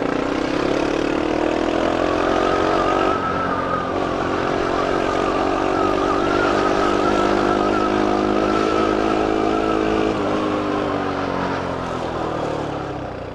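Bajaj Pulsar RS200 motorcycle engine under hard acceleration. The revs climb over the first couple of seconds and dip briefly at an upshift about three seconds in. They then hold high and steady, and ease off around ten seconds in as the bike slows, with wind and road noise underneath.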